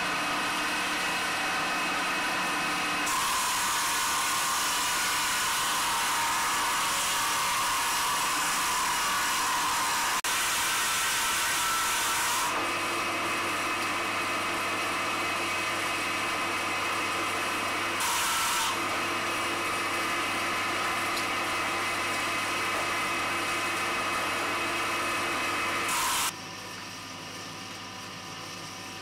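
Electric motor driving a belt-driven stone-carving lathe, running steadily with a hum and whine, while a hand-held carving tool scrapes into the spinning soapstone in a long stretch early on and again briefly later. Near the end the sound drops to a quieter hum.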